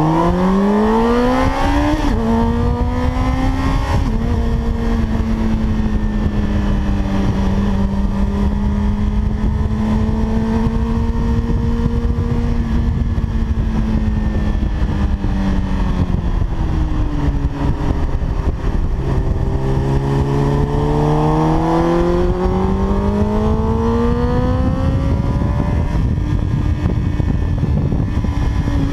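Honda sportbike engine at full throttle on a race track, pulling hard with quick upshifts about two and four seconds in. It holds speed, then the revs fall as the bike slows for a corner, with a downshift blip around two-thirds of the way through. It then pulls hard again with another upshift near the end. Heavy wind rush runs under the engine.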